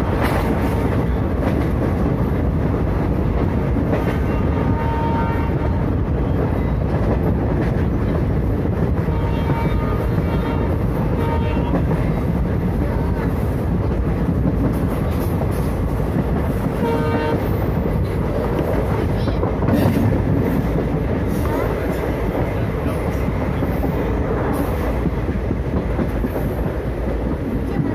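Diesel-hauled express train running, with loud steady rumble and rail clatter. A train horn sounds in short blasts around four seconds in, again around ten seconds, and once more about seventeen seconds in.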